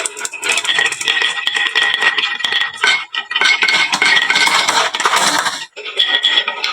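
Many marbles clattering and clicking as they roll down a wooden marble run and drop into toy trucks, with a dense run of small impacts and a light ringing. The clatter dips briefly about three seconds in and again near the end.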